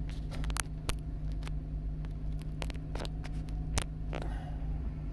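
A vehicle engine running steadily, with scattered sharp clicks and clanks.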